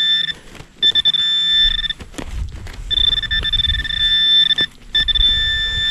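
Metal detector sounding a steady high-pitched tone over a buried target, in several stretches broken by short gaps, with a low rumble under it from about two seconds in.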